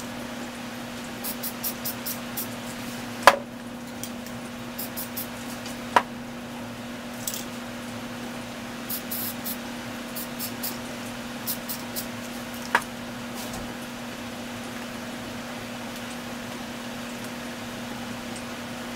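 Aerosol spray paint can fired in short hissing bursts, several quick sprays in a row, over a steady low hum. Three sharp knocks come in between, the loudest about three seconds in.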